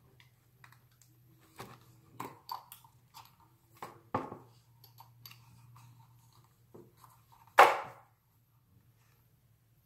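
Handling noises of a small cardboard jewellery box being opened: scattered light clicks and taps as the lid is lifted, and one louder short handling noise about three-quarters of the way through, over a faint low hum.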